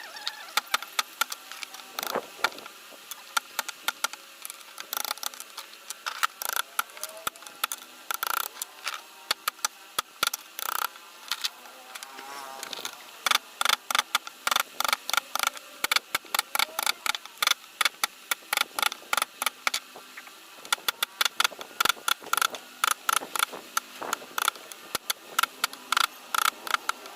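A mallet tapping a wood-carving chisel into a wooden panel: quick, irregular strikes, several a second, coming faster and louder about halfway through.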